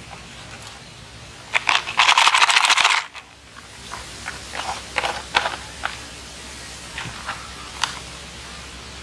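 A plastic toy truck in a mesh net bag being handled and turned over: rustling, crinkling and scattered plastic clicks. About two seconds in comes a loud, rapid run of clicks lasting about a second.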